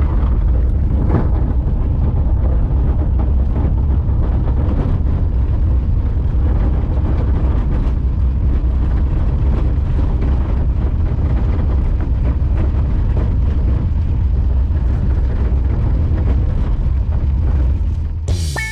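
Vehicle driving along an unpaved dirt road: a steady, heavy low rumble of engine and road noise.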